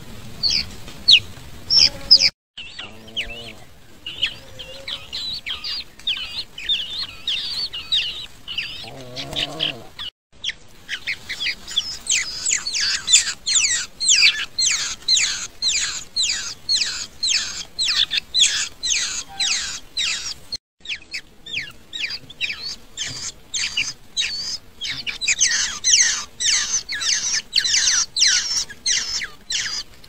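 Sooty-headed bulbul nestlings begging: a rapid, continuous run of short high chirps, several a second, briefly cutting out a few times.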